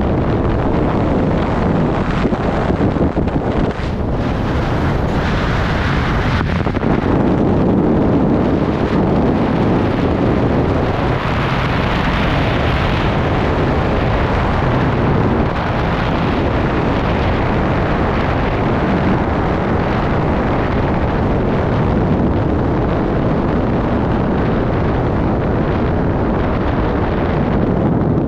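Loud, steady rush of wind buffeting the microphone of a camera in fast flight under a miniwing, with a brief dip about four seconds in.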